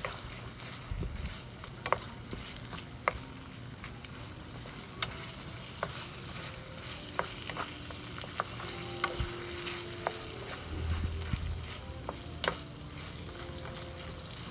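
Chicken sizzling as it fries in a pan, a steady hiss with scattered sharp clicks of a utensil against the pan.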